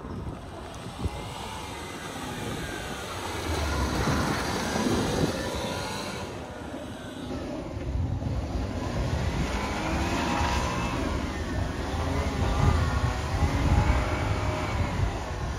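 Suzuki Carry mini truck's engine running and being revved up and down repeatedly as the truck is driven in tight circles on dirt.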